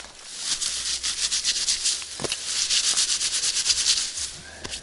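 Tall reeds and grass rustling and swishing as they are parted by hand and pushed through, a dense, fast rustle that dies down near the end.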